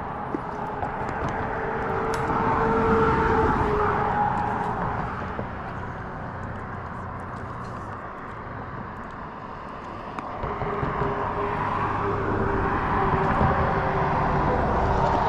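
An engine droning with a steady low hum that swells twice, about three seconds in and again in the second half, as if passing close by.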